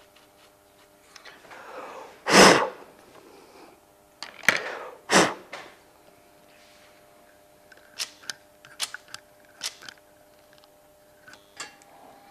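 Two short, hard puffs of breath about three seconds apart, blowing dust off the mechanism while it is cleaned. They are followed by a run of light clicks and taps.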